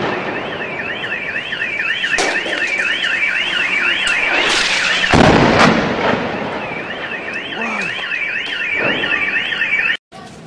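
A car alarm warbling quickly up and down, about three cycles a second, with a loud bang about four and a half seconds in that briefly drowns it. The sound cuts off suddenly near the end.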